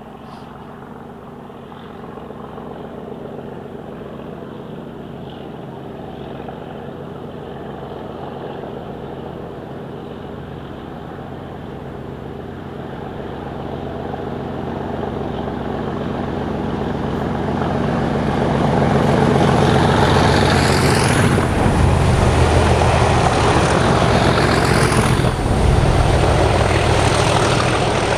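Diesel-hauled train approaching and passing: a steady engine hum grows louder, loudest about twenty seconds in, with wheel and rail noise and two brief falling high squeals as the train goes by.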